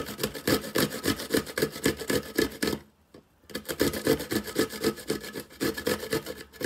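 A cucumber being grated on a flat handheld metal grater, in quick back-and-forth strokes at about five a second. The strokes break off for under a second about three seconds in.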